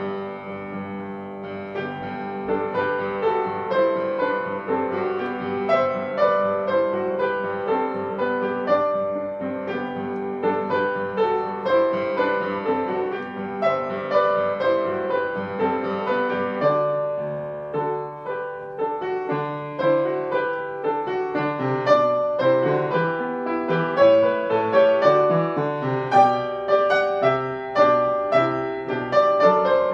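Piano music: a melody over chords, getting somewhat louder in the second half.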